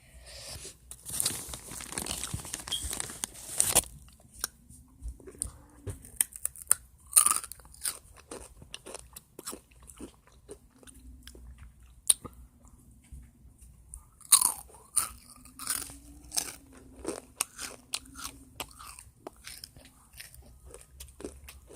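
Close-up crunching and chewing of crisp food: sharp bites and crackles throughout, with a dense run of crunching in the first few seconds and a few faint low hums of the eater's voice.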